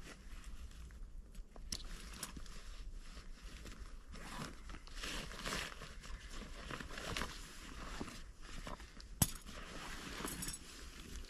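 Irregular crunching and rustling of a person moving through forest litter and twigs, with a few sharp clicks, the loudest about nine seconds in.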